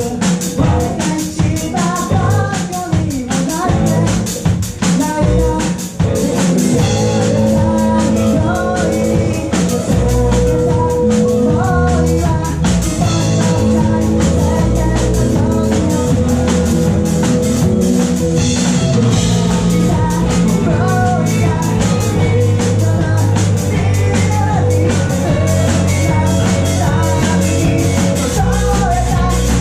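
Live rock band with a singer: drums, electric guitars and bass behind a sung melody. For about the first six seconds the playing is sparse and stop-start; then the full band comes in together and plays on loud and steady.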